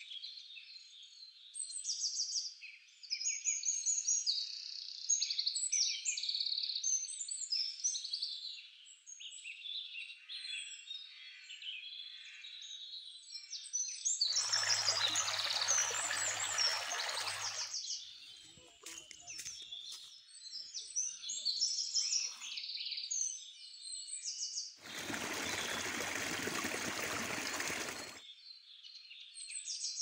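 Many small birds chirping and twittering continuously, in quick overlapping calls. Twice a stretch of rushing, splashing water of about three seconds cuts in and out abruptly: once past the middle and once near the end.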